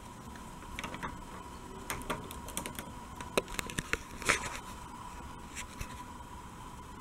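Light clicks and scratchy scrapes of hands handling a LEGO model's plastic pieces, a cluster of them from about a second in to about four and a half seconds in, over a faint steady hum.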